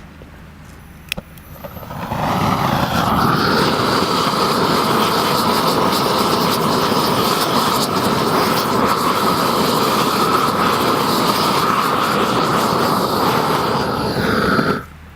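Hand-held gas torch burning steadily, heating preformed thermoplastic overbanding to melt it onto the road surface. A single click about a second in, the burner comes up about two seconds in and cuts off suddenly near the end.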